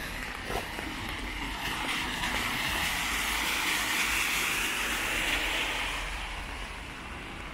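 A vehicle passing on a wet street: its tyres hiss on the wet road, swelling to a peak about four seconds in and then fading.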